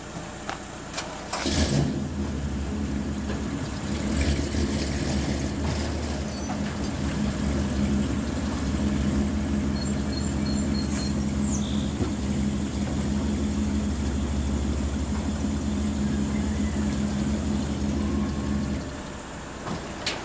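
Propane-powered Yale forklift engine starting about a second and a half in, running with a couple of rises in speed, then shutting off near the end.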